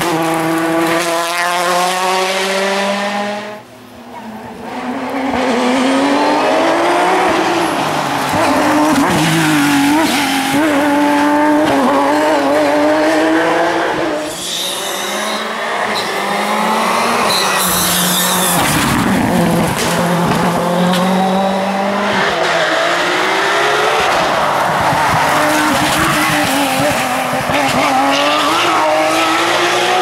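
Rally cars' turbocharged four-cylinder engines at full throttle, several cars passing one after another. Each engine note climbs through the gears and drops at every change, with a brief lull about four seconds in.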